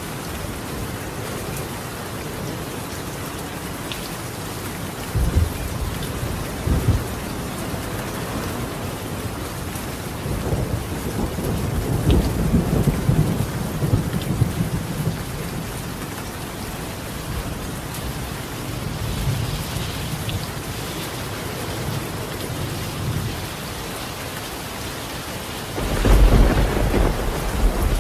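Steady rain falling on a tiled roof, with thunder rolling over it: short rumbles about five and seven seconds in, a longer roll in the middle, and the loudest peal near the end.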